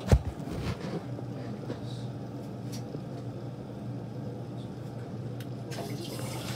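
A single sharp knock of a utensil against a frying pan right at the start, then a steady low hum with a few faint ticks.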